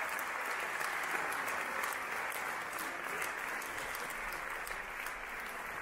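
Audience applauding: steady, dense clapping from a full hall.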